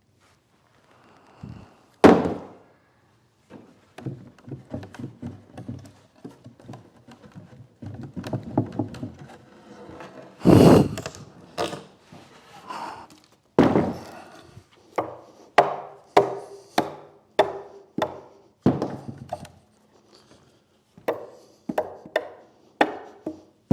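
Wood knocking on wood in a workshop: a loud thunk about two seconds in, a heavier thump near the middle, then a run of sharp knocks about two a second.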